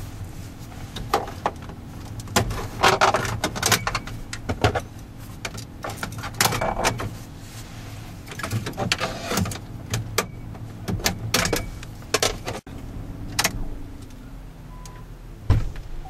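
Plastic dashboard trim bezel around a car radio being pulled off, its clips letting go in irregular clusters of sharp clicks, snaps and knocks, over a low steady hum.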